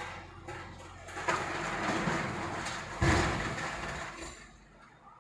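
JCB backhoe loader's engine running under a steady low hum, then masonry crashing down as the digger arm pulls a building wall over. The rubble falls from about a second in, with the heaviest crash about three seconds in, and the rumble dies away near the end.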